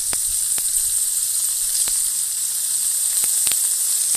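Bacon and a flour-dredged haddock fillet frying in very hot oil in a skillet: a loud, steady sizzle with a few sharp pops scattered through it.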